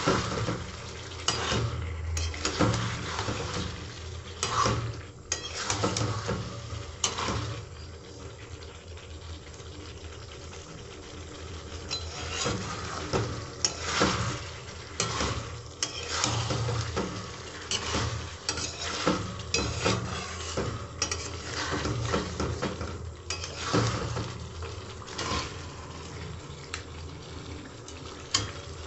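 Flat metal spatula scraping and clinking against a metal pan at irregular strokes, stirring a thick chicken and jackfruit-seed curry as it is fried down, with a low sizzle under it.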